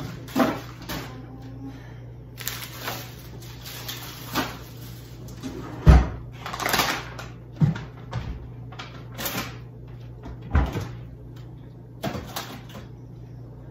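Kitchen cupboard doors opening and shutting, with plastic snack bags rustling and items knocking on the shelves as food is put away. The loudest knock comes about six seconds in.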